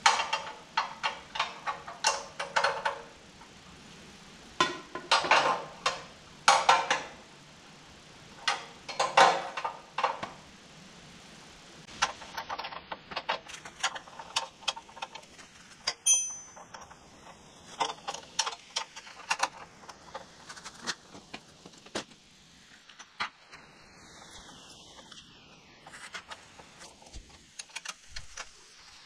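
Hand tools clicking and clinking against metal on a riding lawn mower's front end. The first third holds several short bursts of rapid rattling clicks, and the rest holds scattered lighter clicks and taps.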